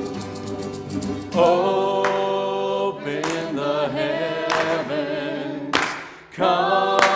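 A worship song sung by a group of voices in long held notes. The singing comes in about a second in, after a short instrumental passage.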